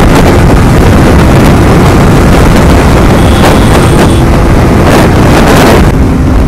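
Motorcycle running at highway speed, with heavy wind rush buffeting the microphone over the engine and tyres. A few sharp bursts come near the end, then the rushing eases.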